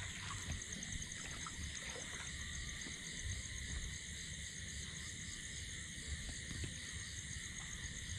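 Night chorus of insects and frogs: several steady high-pitched trills, one a fast pulsing trill, over a low uneven rumble.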